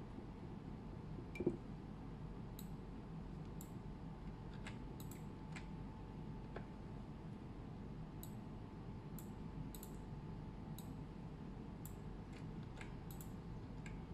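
Computer keyboard keys clicking irregularly, a few at a time, with one soft thump about a second and a half in, over a faint steady hum.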